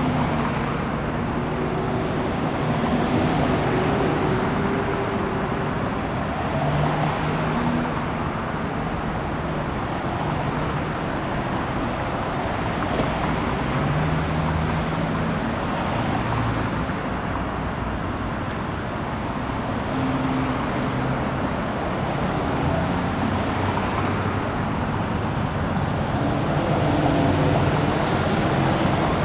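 Steady roadway noise: vehicle engines running and traffic going by, a continuous rumble and hiss with no distinct impacts.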